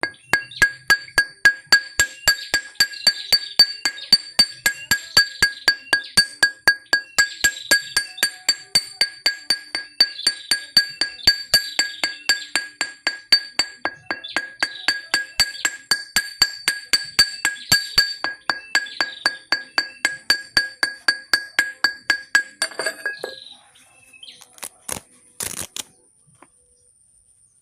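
Blacksmith's hammer striking on an anvil in a steady, fast rhythm of about four blows a second, the anvil ringing with a clear high tone. The hammering stops near the end, followed by a few faint knocks.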